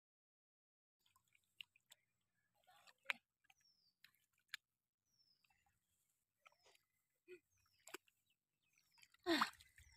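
Mostly quiet, with scattered faint squelches and clicks as rice seedlings are pulled up from wet paddy mud, and a few short falling bird chirps. Near the end comes a louder rustle and splash.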